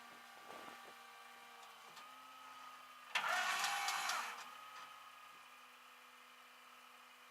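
A vehicle engine running steadily at idle, its pitch stepping up slightly about two seconds in, with a louder, hissing burst of about a second a little past three seconds.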